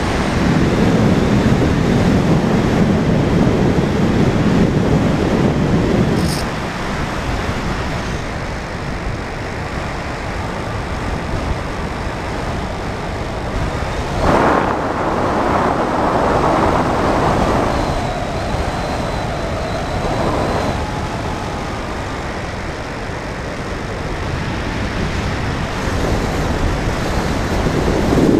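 Finwing Penguin FPV plane in flight: airflow rushing over the onboard camera's microphone, with the electric motor and propeller whining faintly underneath. The rush is heaviest in the first six seconds and surges again about halfway through.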